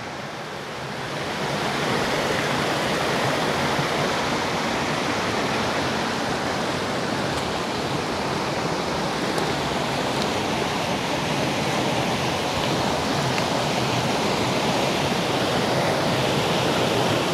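Creek water rushing steadily down a long natural slide of sloping bedrock. The rush grows louder about a second in, then holds even.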